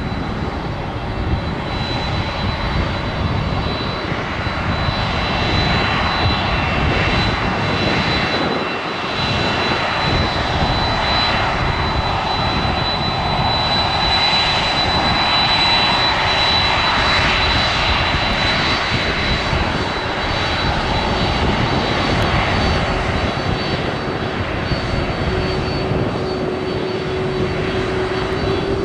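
Boeing 767 freighter's two turbofan engines at taxi power: a steady rushing jet noise with a thin, high, steady whine, growing louder in the middle as the aircraft turns toward and then past, with a lower hum joining near the end.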